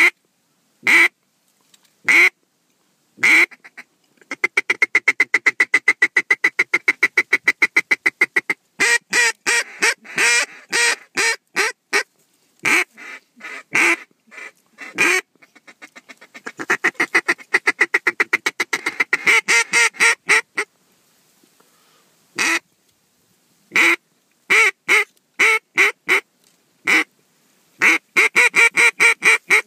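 Mallard duck call blown close by in loud hen quacks: a few single quacks, then long, fast, even runs of short quacks at about seven a second, in several bursts.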